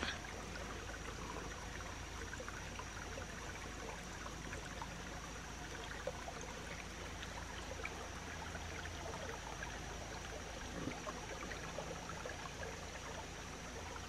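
Small woodland creek running shallow over rocks: a faint, steady trickle of water.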